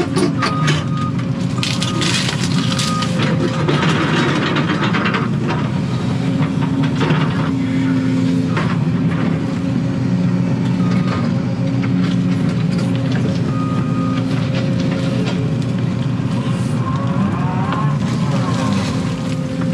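Case excavator's diesel engine and hydraulics running steadily under load, heard from inside the cab. The bucket is digging through dirt and rocks, with scraping and crunching about two to four seconds in.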